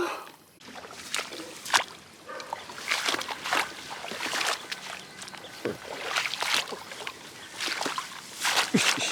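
Shallow water sloshing and splashing in irregular bursts, with scattered sharp clicks and knocks.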